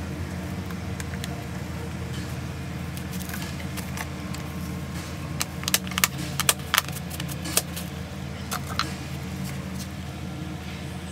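A quick run of sharp plastic clicks and crackles a little past halfway through, as a cut plastic drink bottle is worked loose and lifted out of potting soil, over a steady low hum.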